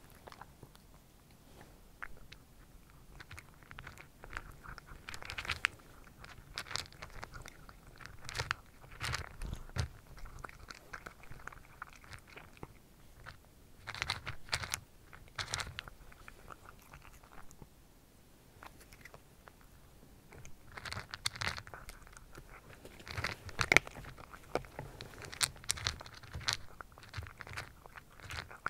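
A cat crunching and chewing dry kibble close to the microphone, in bouts of crisp crunches separated by short pauses.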